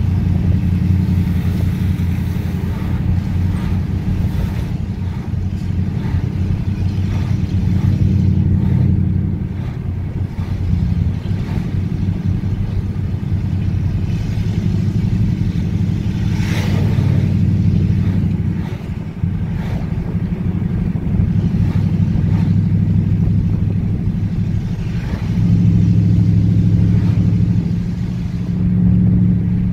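Car engine and road noise heard from inside a moving car, a low steady hum that swells and eases as the car speeds up and slows. There is a brief rush of higher noise a little past halfway.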